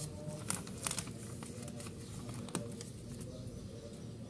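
Paper rustling and crinkling as a notebook is laid open and its pages handled by hand, with a few sharp crackles about half a second in, near one second, and again past two and a half seconds.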